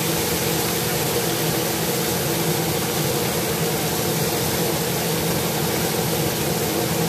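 Kitchen range hood fan running steadily, a hum with a broad hiss, over shrimp sizzling in oil in a wok.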